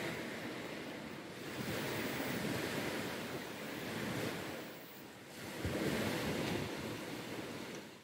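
Surf washing on a sandy beach, a steady rush that swells and eases about every two seconds, with some wind on the microphone.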